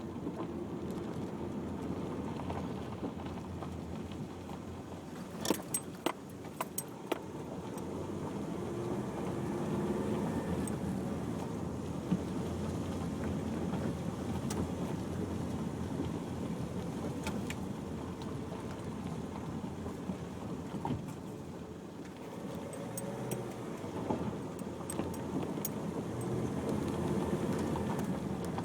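A car driving, with steady engine and road noise and scattered clicks and rattles, a cluster of them about six seconds in.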